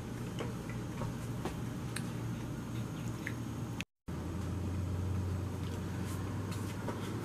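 Steady low hum of kitchen room noise with a few faint clicks and taps. The sound breaks off for an instant at a cut about four seconds in, and the hum is a little stronger afterwards.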